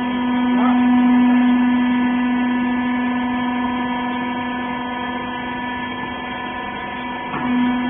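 Hydraulic press baler's power unit, electric motor and pump, running with a steady hum. The hum dips briefly near the end and then picks up again.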